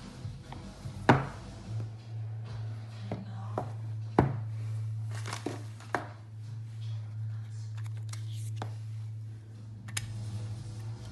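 A boxed iPhone 11 Pro Max and its paperboard box being handled: the lid lifted off and the phone taken out, giving a series of sharp clicks and knocks, the loudest about a second in and another about four seconds in. A steady low hum runs under most of it.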